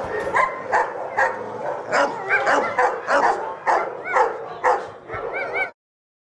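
A dog barking and yipping repeatedly, about two short calls a second, with a few wavering, whining yelps among them; it cuts off abruptly about five and a half seconds in.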